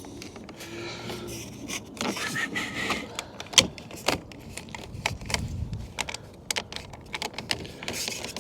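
Hands working plastic parts and a wiring connector into a car door: a run of sharp clicks, taps and short scrapes.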